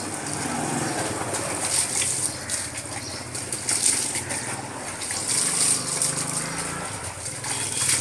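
A dog growling in low, drawn-out rumbles, angry at being bathed, over the wet splashing and rubbing of water in its fur.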